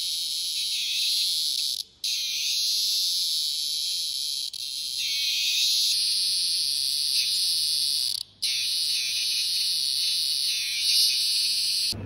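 A large male cicada held in the hand, singing: a loud, steady, high-pitched buzz that breaks off briefly twice.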